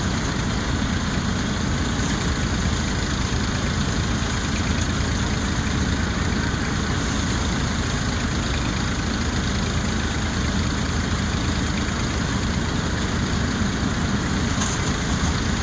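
Diesel tractor engine running steadily under load, driving a paddy thresher as bundles of rice straw are fed into its drum.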